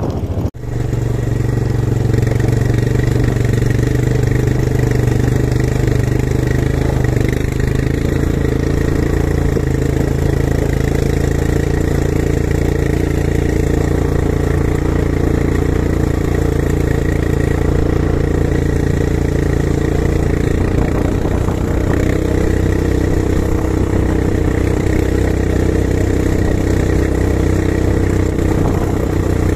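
ATV quad bike engine running steadily while riding over desert sand. It shifts slightly in pitch about two-thirds of the way through.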